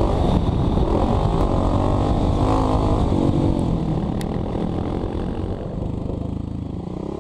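Kawasaki KLX300 dirt bike's single-cylinder four-stroke engine running under way, its revs shifting as it rides over a dirt road, heard close up from a helmet camera. The level eases off slightly toward the end.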